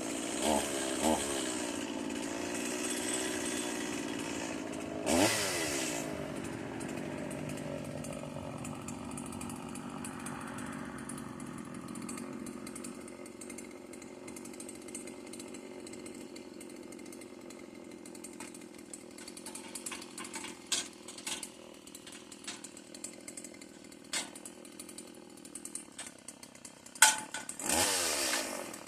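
Stihl chainsaw engine idling, revved briefly just after the start, again about five seconds in, and once more near the end. A few sharp clicks come in the last ten seconds.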